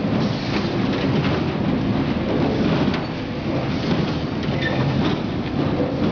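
Bag filling and packaging machine running: a steady mechanical rumble with an even rushing hiss.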